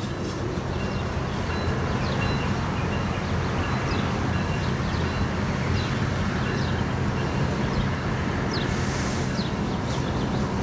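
Tri-Rail diesel commuter train pulling away, its engine making a steady low drone under the rumble of wheels on the track. A few short high chirps and a brief hiss near the end sound over it.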